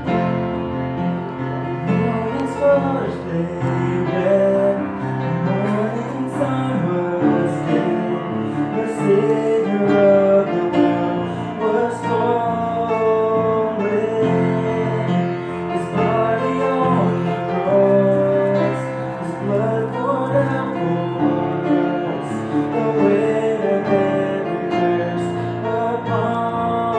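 Music: a song with piano and singing.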